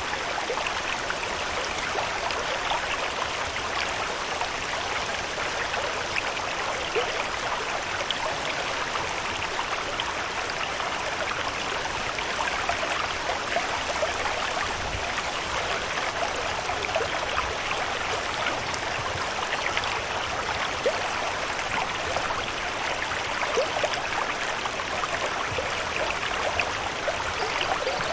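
Steady water ambience: an even rushing hiss dotted with a dense patter of small drips and splashes, unchanging throughout.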